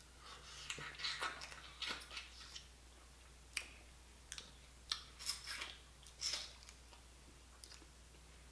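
Steamed blue crab being picked apart by hand and eaten close to the microphone: brittle shell crackling and wet chewing clicks, coming in several short clusters.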